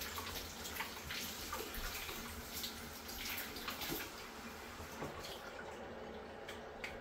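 Kitchen faucet running into a sink while dried chiles are rinsed by hand under the stream, with small irregular splashes as the water hits the hands and chiles.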